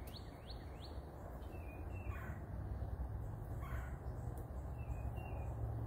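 Birds calling: a quick run of short rising chirps at the start, then two longer falling calls about two and nearly four seconds in, over a low steady hum.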